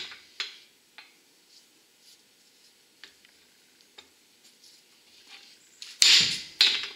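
Hammer blows on the steel yoke of a Ford F-350 axle shaft U-joint held in a vise: a sharp strike about half a second in, a lighter tap at about one second, faint clicks in between, then two hard strikes close together near the end. The blows are struck to free the newly fitted U-joint, which is binding in one direction.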